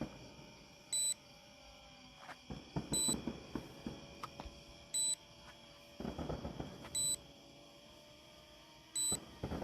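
A drone system's warning beep: one short, high electronic beep every two seconds, typical of a low-battery or return-to-home alert during landing. Between the beeps come bursts of low crackling rumble, the fireworks finale going off.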